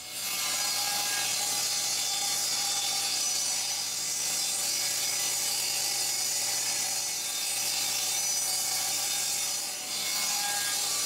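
Table saw running and cutting oak panels to size: a steady machine whine with the hiss of the blade through the wood, dipping briefly about ten seconds in.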